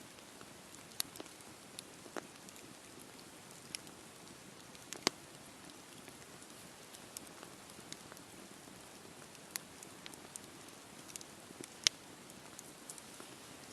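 Wood campfire burning: a soft steady hiss with scattered sharp crackles and pops. Two pops stand out as loudest, one about a third of the way in and one near the end.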